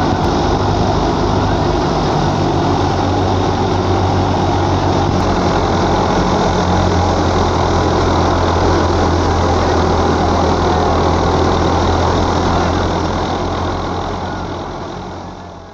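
Belarus 510 tractor's diesel engine running steadily under load as it drives a thresher, with the thresher adding a dense rushing noise over the low engine hum. The sound fades out near the end.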